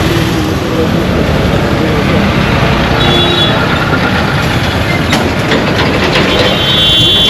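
Loud, steady, dense rushing noise: a brown-noise track. A short, high, steady tone sounds about three seconds in, and a cluster of stacked high tones comes in near the end.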